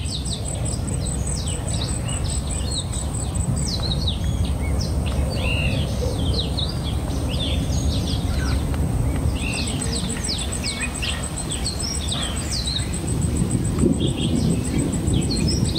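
Many wild birds chirping and calling, a dense run of short rising and falling chirps, over a steady low rumble, with a thin high pulsing buzz running under most of it.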